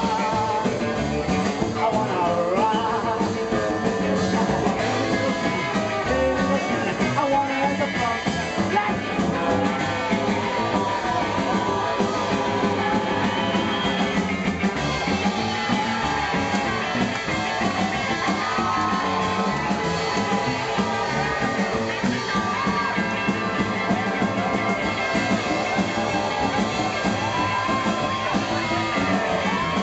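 Live rockabilly band playing at a steady, fairly loud level: electric guitar over upright double bass and drums.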